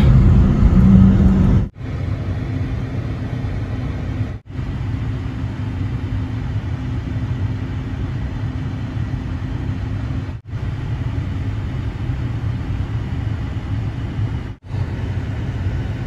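Steady low rumble of a car's engine and tyres, heard from inside the cabin. It is louder for the first second and a half, then drops abruptly to nothing for a moment four times.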